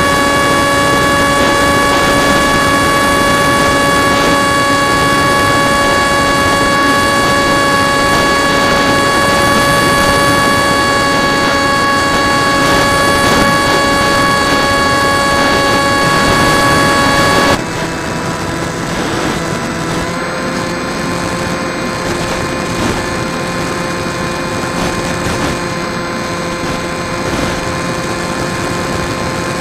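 Drifter ultralight aircraft's engine and propeller running steadily at high power in flight, with wind rush over the open cockpit. About 17 seconds in, the engine note steps down suddenly to a lower pitch and a quieter level, then runs steadily again.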